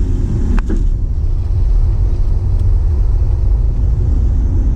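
Old car driving, heard from inside the cabin: a steady low rumble of engine and road noise, with one brief sharp sound about half a second in.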